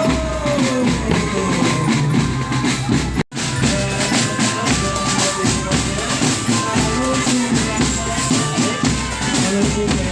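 A marching drum band playing: bass drum and snare beats under a held melody line. The sound cuts out for a split second about a third of the way in.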